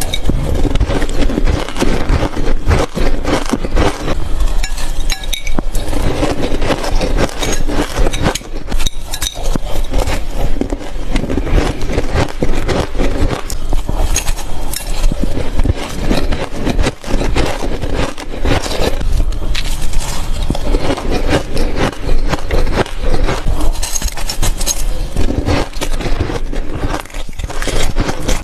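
Ice being bitten and crunched in the mouth, a continuous run of loud, closely spaced crunches.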